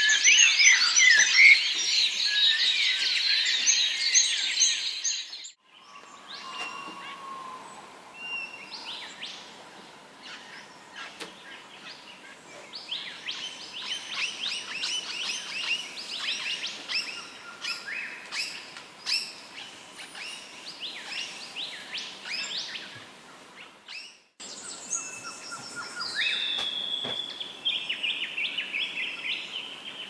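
Dawn chorus of many forest birds singing and calling together, dense and loud at first. After a sudden break about five seconds in, a thinner mix of separate chirps and trills follows. Another break comes near the end, followed by a few more calls, one of them held on a steady note.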